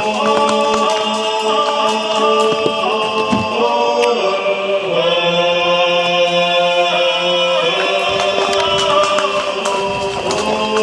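Background music of choir-like chanting voices, long notes held and changing every second or so.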